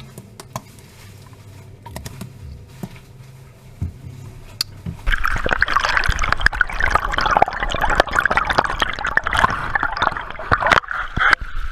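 A few faint clicks, then about five seconds in, water starts running loudly with splashing and gurgling; shortly before the end it gives way to a steadier hiss.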